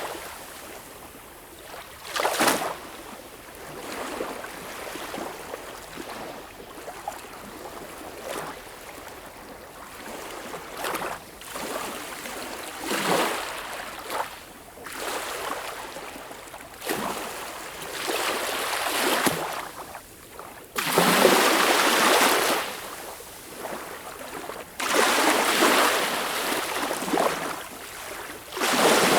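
Sea waves breaking and washing in, a surge of surf every few seconds, with two heavier breakers in the last third.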